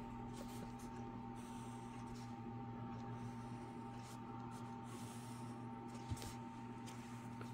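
Pencil scratching on drawing paper in several short strokes, faint, over a steady electrical hum, with a single knock about six seconds in.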